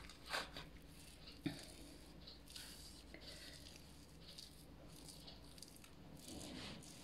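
Faint soft rubbing and smearing as a hand spreads lard over folded pastry dough, with one light knock about one and a half seconds in.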